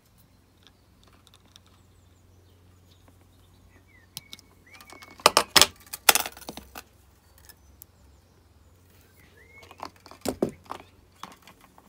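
Stiff copper jewellery wire being handled and turned in the fingers: clusters of small metallic clicks and scrapes as the loose wire ends rub and spring against each other, once about five seconds in and again near the end, over a faint steady low hum.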